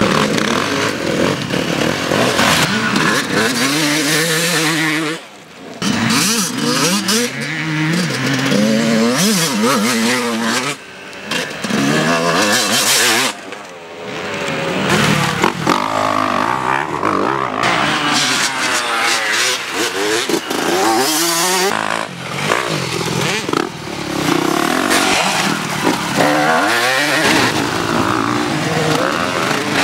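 Motocross dirt bike engine revving up and easing off as it goes through the corners, its pitch rising and falling again and again, with a few short lulls.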